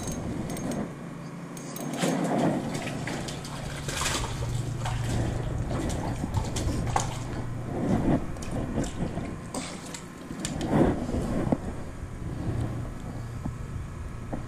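Water splashing as a hooked crappie is fought and reeled up to the surface, with several short splashy noises. Under it, from about two seconds in, runs a steady low rumble of traffic on the bridge overhead.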